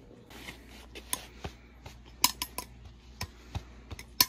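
Cutlery clicking against a plate: a string of sharp, irregular clicks and taps, the loudest near the end.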